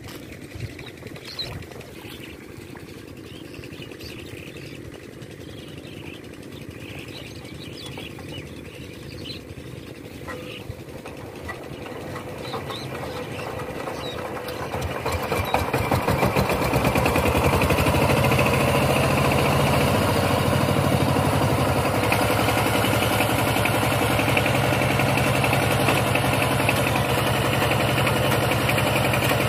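Two-wheel power tiller's single-cylinder diesel engine running, faint at first, then louder and steady from about halfway as it pulls the tiller through wet paddy mud.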